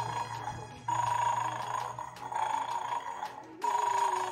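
A bright, ringing electronic tune like a phone ringtone, playing a short phrase that repeats about every three seconds.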